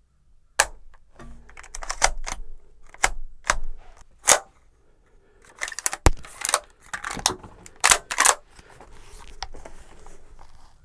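A gun being handled: a run of sharp clicks, knocks and rustles, with one very short, sharp click about six seconds in.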